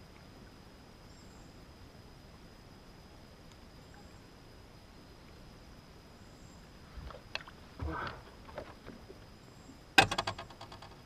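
Quiet outdoor background on a bass boat, then a few knocks and rustles of handling about seven to eight seconds in. Near the end comes a sharp knock on the boat, the loudest sound, followed by a short fast rattle.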